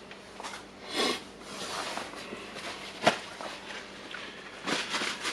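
Hammer drill parts being handled on a workbench: rubbing and light scraping, with a short clatter about a second in and a sharp click about three seconds in.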